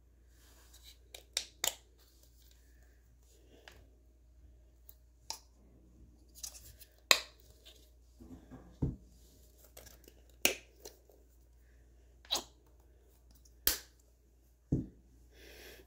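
Small plastic acrylic-paint bottles being handled, squeezed and capped: scattered sharp plastic clicks about one every second or two, the loudest about seven seconds in, with two duller knocks, one about nine seconds in and one near the end.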